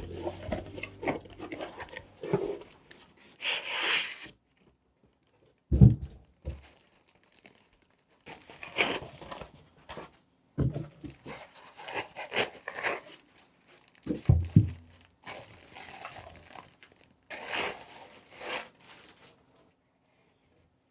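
Packaging being handled and opened by hand, crinkling and tearing in irregular bursts with short silent pauses. A dull thump comes about six seconds in and another around fourteen seconds.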